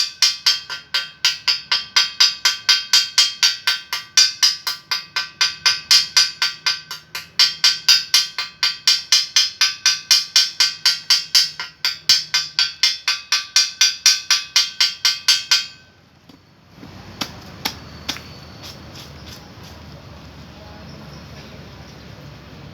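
Hammer striking steel pipe over and over, each blow ringing, about two to three blows a second with a few short breaks. It stops suddenly and gives way to a quieter steady noise with a few clicks.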